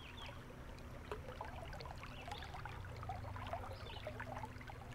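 Shallow river current babbling and trickling, faint and steady.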